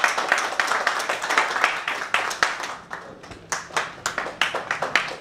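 Audience clapping, dense at first and thinning to more separate claps toward the end.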